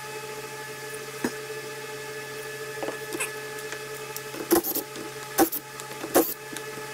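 Cordless drill-driver run in three short bursts, backing out the bolts on the plunger head of a Bosch CP4 diesel injection pump, over a steady background hum. A single sharp click comes about a second in.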